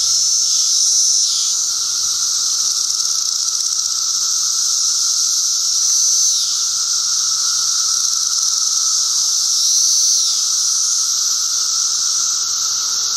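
Loud chorus of Brood XIII periodical cicadas: a steady high-pitched drone that swells three times and falls in pitch at the end of each swell, over a lower steady hum.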